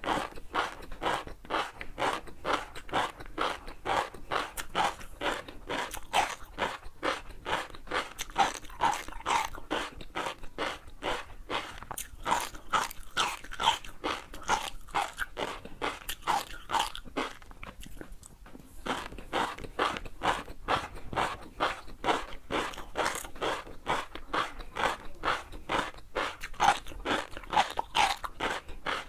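Close-miked crunchy chewing: a quick, even run of crackling crunches as food is bitten and chewed, with a short pause about two-thirds of the way through before the chewing resumes.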